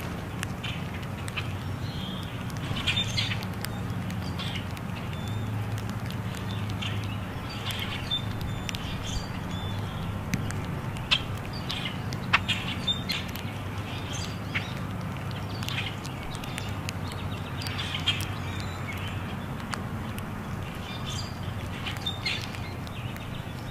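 A feeding flock of grackles giving short, scattered squeaky calls and chirps, with a few sharp clicks and a steady low hum underneath.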